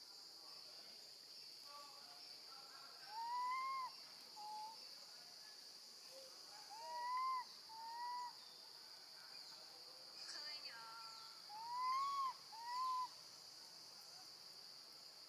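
Baby monkey giving clear, arched, hoot-like calls for its mother in three pairs, each a longer call followed by a shorter one. A steady high insect buzz runs underneath.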